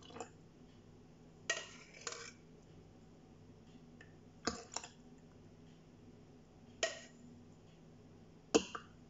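Metal ladle clinking against a stainless steel saucepan and glass cups as cream is ladled out: about six short, separate clinks a second or two apart, over a faint steady hum.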